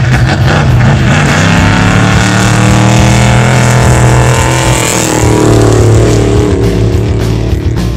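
Desert race truck speeding past at high revs on a gravel track. Its engine note rises as it approaches and drops as it goes by, about five seconds in, with tyre and gravel noise underneath.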